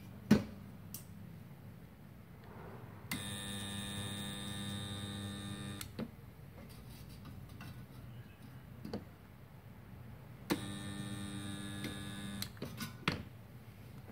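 Multipro 2.5 kVA portable mini spot welder buzzing with a steady mains hum from its transformer during two welding pulses, the first about three seconds long and the second about two, as the lever arm clamps two 1 mm steel plates. A loud sharp click comes about a second before the first pulse, with smaller clicks of the arm between. The 2 mm stack is too thick for this machine and does not weld.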